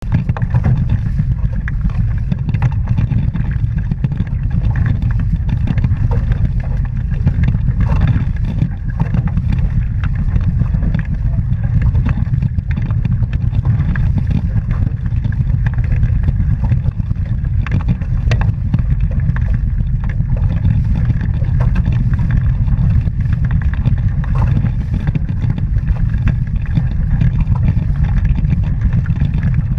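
Wind buffeting the microphone aboard a sailing catamaran: a steady, loud low rumble that flutters constantly in level, with a faint hiss above it.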